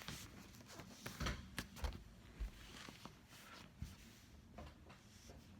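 Scattered soft clicks and knocks of plastic puzzle cubes being handled, set down and picked up.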